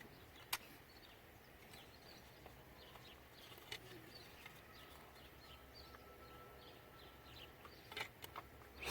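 Near silence: a few faint, sharp clicks of small switch parts being handled, over faint bird chirps.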